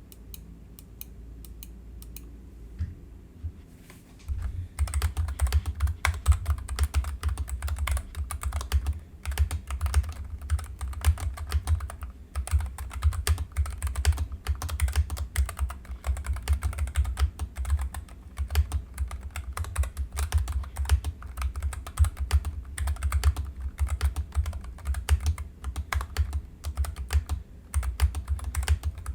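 Typing on a Nuphy Air 75 low-profile mechanical keyboard with brown tactile switches. A few scattered keystrokes come first, then fast, continuous typing from about four seconds in.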